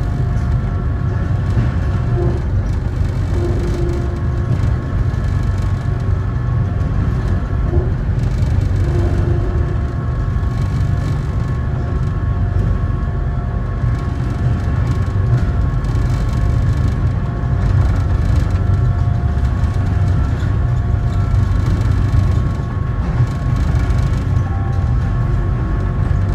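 Sengkang LRT train running, heard from inside the car: a steady low rumble, with several steady whining tones above it.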